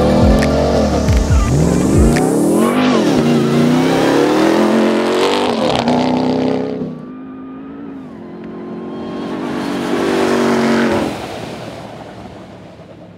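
Ram TRX's supercharged 6.2-litre V8 revving hard under acceleration, its pitch climbing and falling several times. It drops off about seven seconds in, rises again briefly, then fades away.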